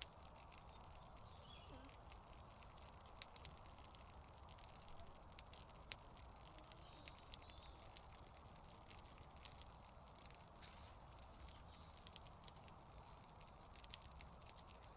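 Faint crackling of a freshly lit small campfire of twigs and cones, with scattered sharp pops and snaps over a steady outdoor hiss.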